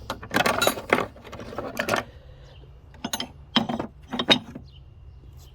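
Old metal hand tools clinking and clattering against each other as they are handled and set down: a busy rattle over the first two seconds, then four separate clinks.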